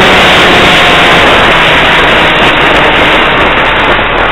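Onboard an RC model jet low over the ground: a loud, steady rush of air across the onboard camera's microphone, with the motor's whine faint underneath, the motor throttled back for landing.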